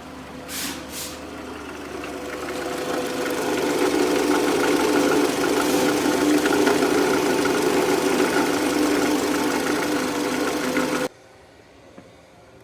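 Toyota Estima engine running with an abnormal noise from its alternator: a steady mechanical drone with a few held tones, growing louder over the first few seconds and cutting off suddenly near the end.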